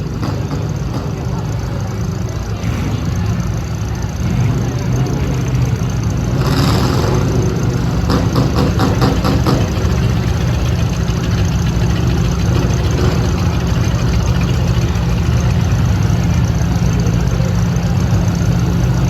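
Several demolition derby cars' engines running on the track, a loud steady drone with some revving, and a brief louder noisy burst about six and a half seconds in.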